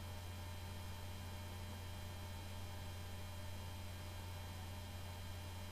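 Steady low electrical hum with faint steady high tones above it; nothing else stands out.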